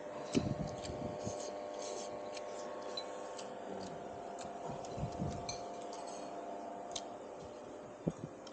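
Eating utensils clinking and tapping against a bowl, a handful of scattered light clinks over a steady background hum.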